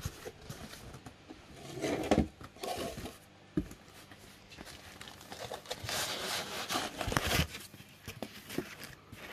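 Cardboard boxes and packaging being handled: irregular rustling and scraping of cardboard, with a few sharp knocks as boxes are set down and opened.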